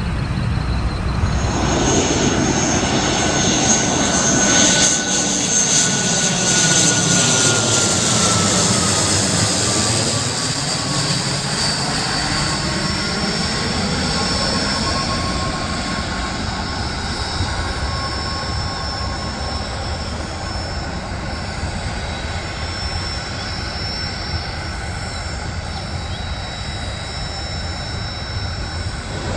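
Airliner's engines passing by, their whine dropping in pitch about ten seconds in, then running on steadily and slowly fading as the plane moves away.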